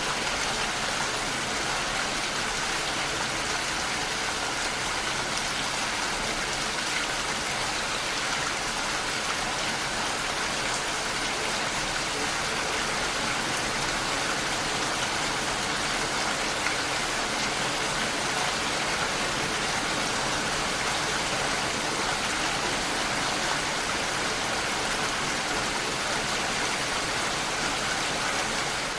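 Steady rainfall, an even hiss of rain falling without let-up.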